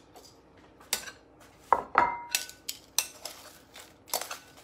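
Metal kitchen tongs clinking against a glass bowl while fries are lifted out: about half a dozen sharp clinks, a couple of them leaving a brief ringing tone.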